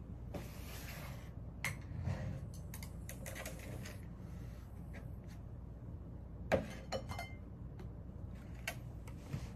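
Quiet room with a few scattered light clicks and clinks, like household items or dishes being handled, the loudest about six and a half seconds in, and a short hiss in the first second.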